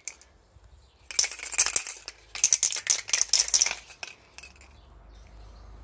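Aerosol spray paint can being shaken, its mixing ball rattling rapidly inside, in two bouts. The can has run out of paint.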